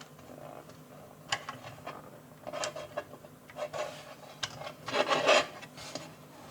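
Small clicks and brief scraping rustles of tiny screws and tools being handled and set down during the teardown of a radio transmitter, a few sharp ticks among them, busiest about five seconds in.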